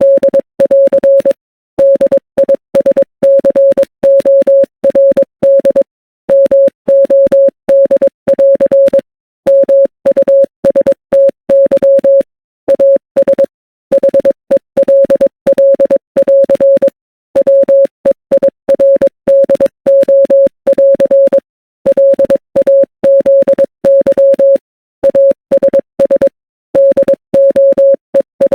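Morse code sent as a single-pitched beep, keyed on and off in short dots and longer dashes, with brief gaps between letters and longer pauses between words.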